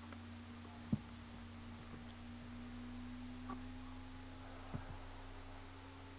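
Quiet, steady low hum, with two short soft knocks, one about a second in and one later on.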